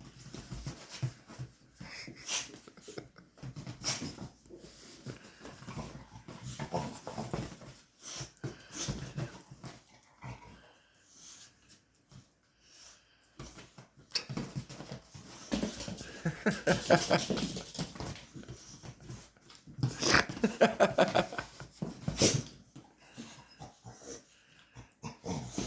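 A chihuahua puppy and a bigger dog growling in play as they wrestle, with scuffling and heavy breathing. The growling is loudest about two thirds of the way in and again a few seconds later.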